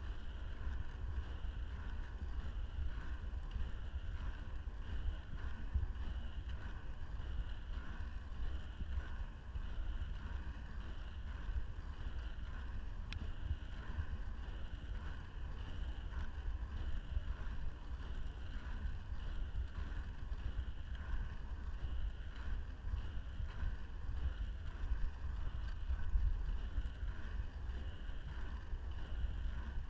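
Inline skate wheels rolling steadily over asphalt, a continuous low rumble of road noise with wind buffeting the microphone.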